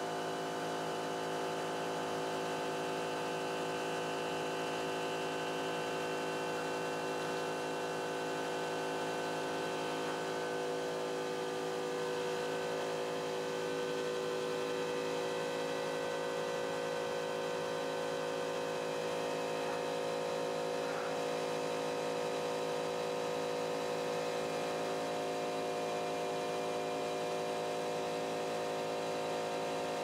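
CNC pen-plotting machine running as it draws with a fountain pen: a steady motor hum with several held tones.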